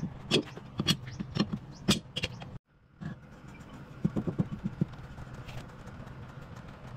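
A series of sharp clicks and knocks over a steady low hum, with the sound cutting out briefly about two and a half seconds in.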